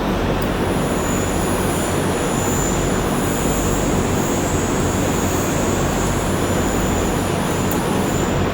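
Steady mechanical din of shop machinery, with a high-pitched whine over it that comes in about half a second in and fades near the end.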